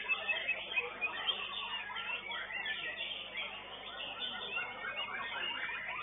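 White-rumped shamas (murai batu) singing in a contest arena: dense, overlapping chirps and quick whistled phrases from several birds at once.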